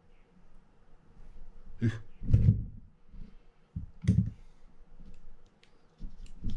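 Handling noise from a fishing reel and hand tools being worked on a bench: a few dull knocks with rustling between them, and some light clicks near the end.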